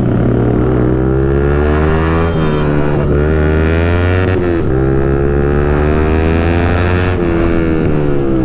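Motorcycle engine and exhaust under way, its pitch rising and falling with the throttle and breaking sharply about two, four and a half and seven seconds in, as with gear changes.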